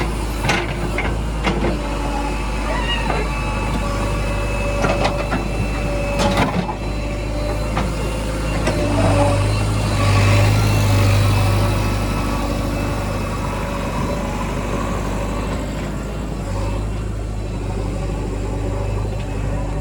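Heavy diesel engine running steadily, swelling louder for about three seconds near the middle. A few sharp knocks sound in the first seconds.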